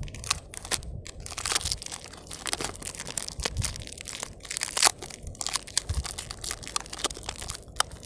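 Irregular crunching and crinkling: dense, uneven crackles with a low rumble beneath.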